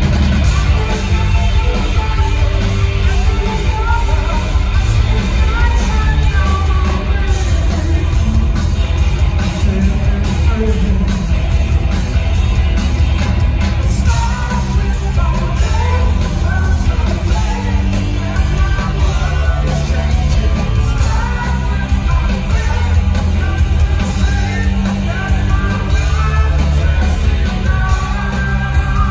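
Live rock band playing at full volume, electric guitar, bass guitar and drum kit with a sung lead vocal, as heard from the audience, with a heavy, booming low end.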